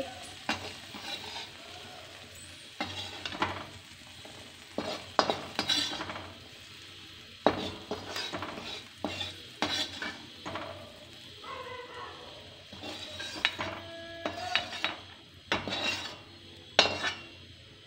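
Metal slotted spoon scraping and clinking against an aluminium kadhai in irregular strokes as fried green peas are scooped out and tipped into a steel dish, over a faint sizzle of the hot oil left in the pan.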